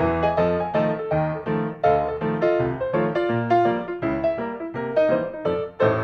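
Background piano music: a steady stream of struck notes, several a second.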